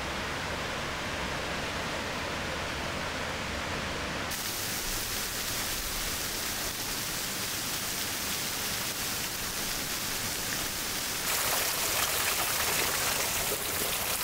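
Steady rushing noise of fast-flowing water, with no distinct events; its character shifts suddenly about four seconds in and again about eleven seconds in, where the shots cut.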